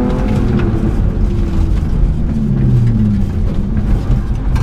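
BMW E36 rally car's engine heard from inside the cabin, its revs falling off and then climbing again about halfway through as the car is driven hard around a hairpin.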